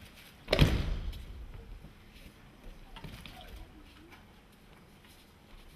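A thrown aikido partner lands on tatami mats in a breakfall: one heavy thud about half a second in, ringing on briefly in the large practice hall.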